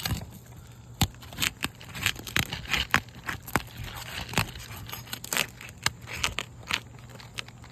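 Asphalt roof shingle being pried apart and tearing, with irregular sharp cracks and crackling as it rips. The shingle is sealed down so hard that it tears rather than coming unsealed.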